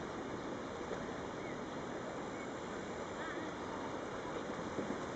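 Shallow, fast river running over stones and pebbles: a steady rushing of water.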